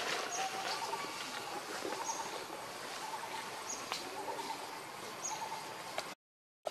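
Forest background of birds and insects: a short high chirp repeats about every one and a half seconds over a steady hiss, with a few sharp clicks and other bird calls. The sound drops out briefly near the end.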